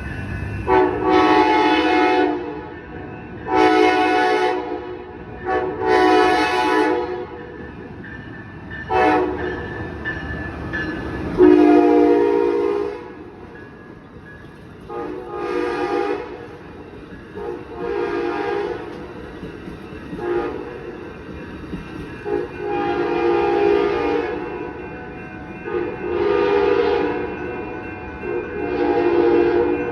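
Horn of an Amtrak SC44 Charger diesel locomotive sounding about a dozen blasts, some long and some short, over the steady low rumble of the passing train.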